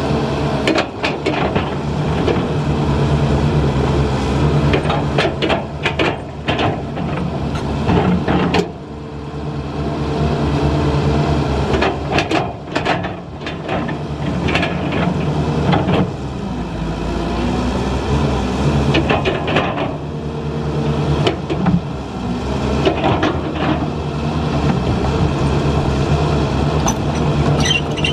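Heavy diesel construction machinery running steadily, with frequent clanks and knocks on top.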